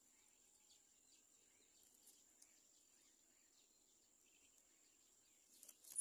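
Near silence with a faint, steady high-pitched whine and a few faint ticks; a short, louder burst of sound starts just before the end.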